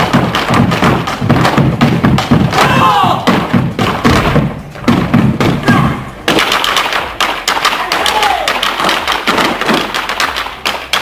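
Malambo zapateo: fast, rhythmic stamping of boots on a stage floor. About six seconds in it gives way to the sharper, quicker clacking of boleadoras, their weighted balls whirled and struck against the floor in rhythm. Brief shouted calls come in between.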